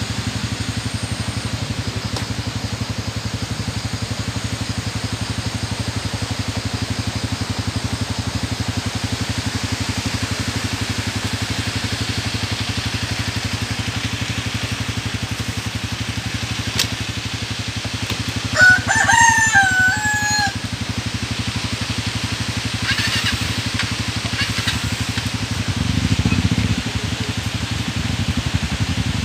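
A rooster crows once, a call of about two seconds, over a steady low drone that runs throughout.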